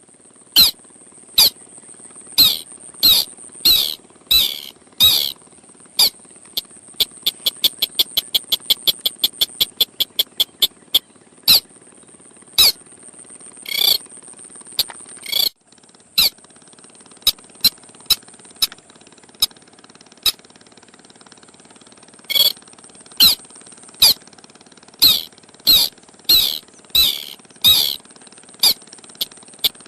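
Crake lure call (the Indonesian sintar sawah) played as a trapping call: loud, sharp notes that slide in pitch, repeated in bursts, with runs of quick ticking notes at about three a second, over a steady high hiss. The calls break off for several seconds in the middle, then start again.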